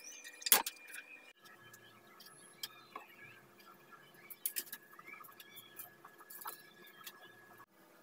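Light wooden clicks and taps of teak cage slats and thin bars being handled on a workbench, with one sharp click about half a second in.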